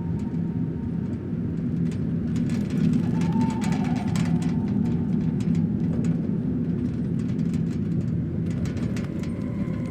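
Horror sound-effect ambience: a steady, dense low rumble with scattered faint crackles and a faint falling whine about three and a half seconds in.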